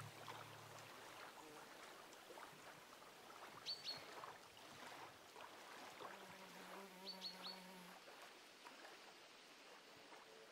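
Near silence: faint ambience broken by short high chirps in quick runs, two about four seconds in and three about seven seconds in, with a faint low steady tone around the middle.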